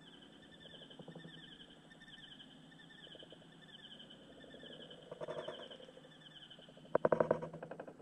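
A faint, high, fast-pulsing animal trill, then a short burst of rapid clicks about seven seconds in.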